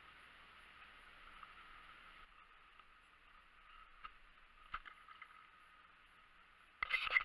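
Faint steady outdoor hiss with a few soft clicks, then a brief loud clatter of handling noise near the end.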